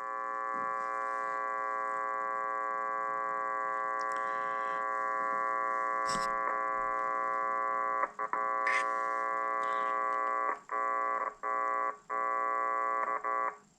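Loud steady buzzing hum from a Kenwood TS-820S transceiver's monitor while it transmits. It drops out briefly several times in the second half, with a few faint clicks. This is an intermittent fault on the IF board where the mic lines come in, which the owner suspects is the board itself rather than the connector.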